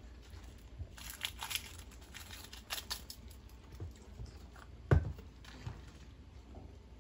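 Seasoning powder shaken and pinched out of a jar of Knorr chicken seasoning into a pot: faint rustling and light ticks, then a single sharp knock about five seconds in as the jar is set down on the counter.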